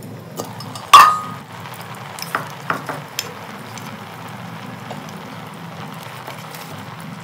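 An aluminium cover clanks once with a short ring about a second in as it comes off a cooking pot, followed by a few lighter knocks, over a steady sizzle from the pot steaming on a charcoal stove.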